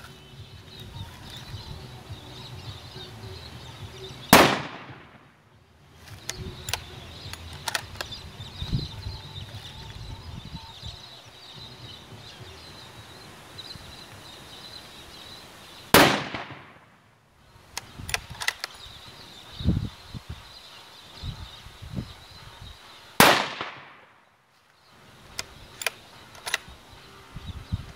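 Three shots from a Sako TRG-42 bolt-action rifle in .338 Lapua Magnum, fired without a muzzle brake, about 4, 16 and 23 seconds in. Between the shots come smaller metallic clicks of the bolt being worked.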